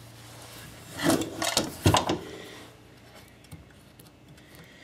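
Handling noise as an old Makita 4-inch belt sander's body is turned over and shifted on a wooden workbench: a cluster of scrapes and knocks from about one to two seconds in, then faint rubbing.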